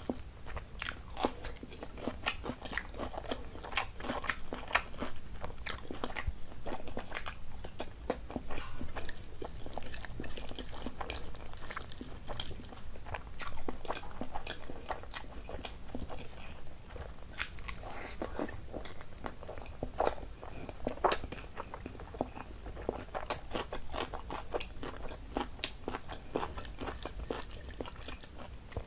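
A person chewing and crunching food, with dense irregular crisp clicks and wet mouth sounds throughout.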